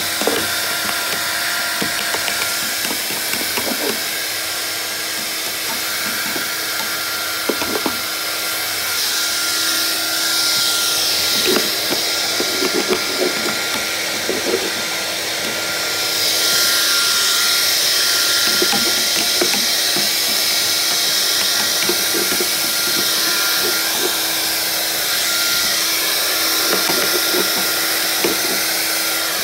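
Vax Air Cordless upright vacuum cleaner running steadily, a constant motor hum and whine with a strong airy hiss, and scattered short clicks and rattles as it is pushed over the floor.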